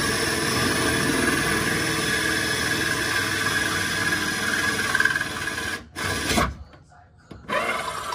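Power drill boring through a Subaru STI's sheet-steel floor pan, a steady grinding whine for a roll-cage mounting hole. It stops for about a second near the end, then starts again as the bit breaks through the floor.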